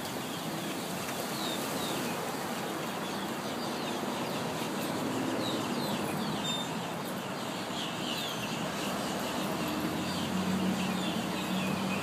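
A huge flock of starlings calling all at once: a dense mass of short, overlapping falling notes, over steady road traffic.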